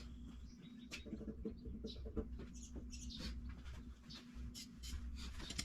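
Rummaging through hand tools: scattered metal clinks, clicks and rattles of sockets and tools being moved, over a steady low hum.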